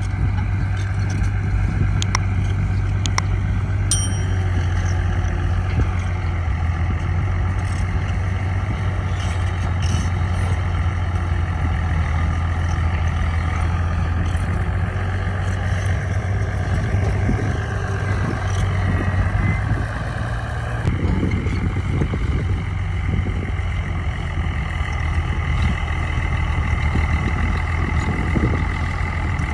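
Heavy diesel earthmoving machinery running steadily, a constant low engine drone. There are a few sharp metallic clinks in the first few seconds, and the engine note changes about two-thirds of the way through.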